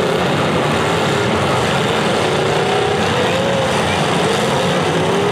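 Demolition derby cars' engines running and revving, the pitch rising and falling slowly over a steady din.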